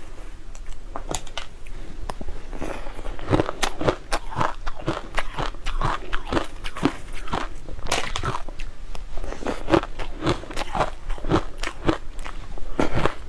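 Crisp, rapid crunching as purple crushed ice is bitten and chewed close to a clip-on microphone, many sharp crunches in an irregular run.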